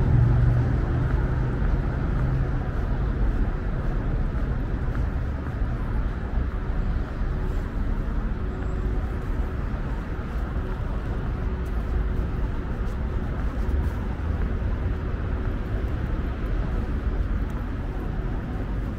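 Steady city road traffic: a continuous rumble of car engines and tyres, with one louder engine drone that fades away in the first few seconds.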